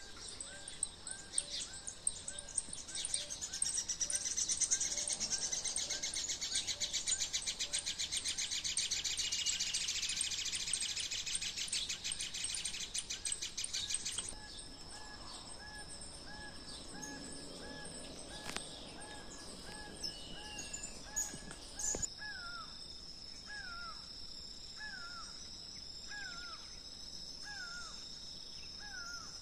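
Birds singing and calling in open countryside: a short chirp repeated about twice a second throughout, with a dense rapid high trill over it in the first half that stops abruptly about halfway. In the last part, a bird gives a series of falling call notes a little over a second apart over a thin steady high tone.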